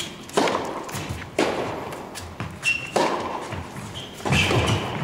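Tennis ball struck by rackets and bouncing on the court during a rally: four sharp hits a second or so apart, echoing in a large indoor tennis hall, with a couple of short high squeaks between them.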